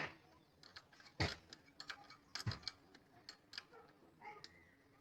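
Light, irregular metallic clicks and taps of hand tools on the valve gear of a Ford CHT engine during a valve adjustment, with the engine not running.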